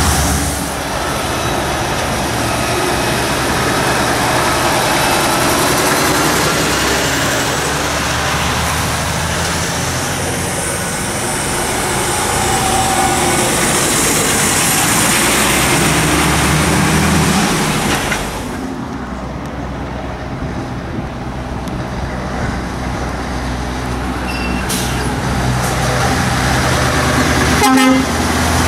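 Articulated lorries driving past close by one after another, their diesel engines running under load over tyre noise on the road. About two-thirds of the way in it goes quieter before the next truck comes up, and near the end there is a short horn toot, the loudest moment.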